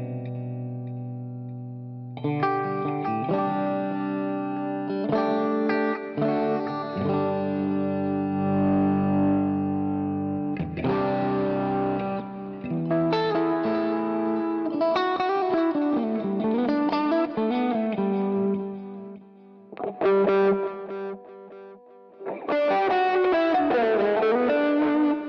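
Electric guitar played through a NUX MG30 Gen2 multi-effects processor with a Joyo American Sound amp-simulator pedal in its effects loop. It opens with ringing chords, moves to single-note phrases, dips briefly twice about twenty seconds in, then ends with busier playing.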